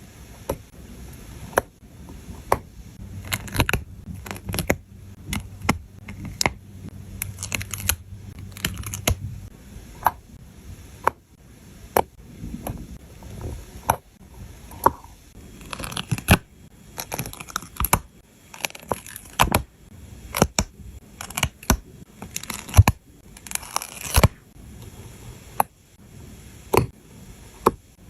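Close-up handling of scenery stickers: backing paper peeled and torn in short papery rustles, with frequent small taps and clicks as pieces are pressed down and set on the table. A faint low hum runs under the first third.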